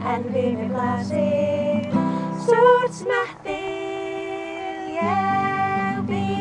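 Women singing together to a strummed acoustic guitar.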